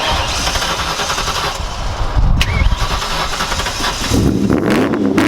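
A car engine is started. After a few seconds of rough noise it catches about four seconds in, its pitch rising briefly as it fires, then settles into a steady idle.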